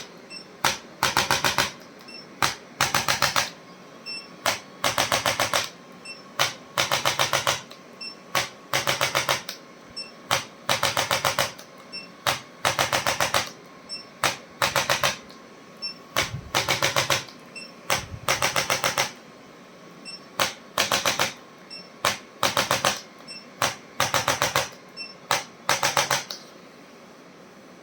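Electric handheld chiropractic adjusting instrument firing repeated bursts of rapid mechanical clicks. Each burst lasts up to about a second, and they follow one another every second or two, stopping shortly before the end.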